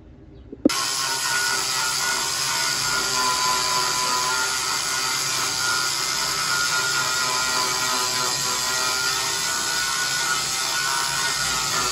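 Power grinder grinding down fresh spot welds on a steel car quarter panel. It starts abruptly just under a second in and then runs steadily.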